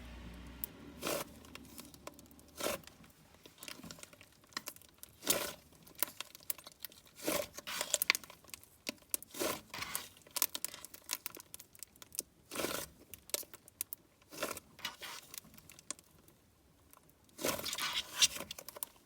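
Butter slime being handled, with irregular crackling clicks about once a second and a longer crackly burst near the end.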